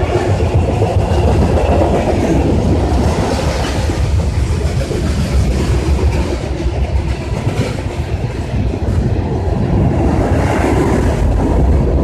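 Freight train cars rolling past close by: a steady, loud rumble with wheel clatter on the rails.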